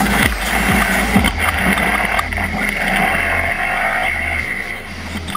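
Off-road racing buggy driving hard on a dirt course, its engine running under load as heard by a camera mounted on the car's chassis beside the front wheel. The level eases a little near the end.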